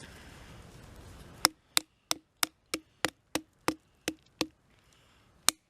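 Multi-tool blade chopping into wood: ten sharp strikes at about three a second, then a single strike a second later.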